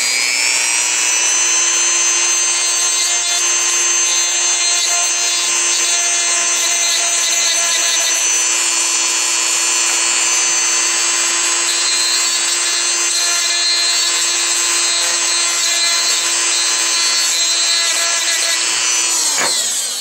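Dremel rotary tool fitted with a cutting bit, running at a steady high whine as it grinds burrs off a die-cast toy car. It comes up to speed at the start and winds down and stops shortly before the end.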